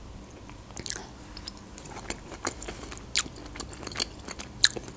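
Close-miked mouth sounds of a person chewing soft pelmeni in a creamy sauce: scattered wet smacks and clicks at irregular intervals.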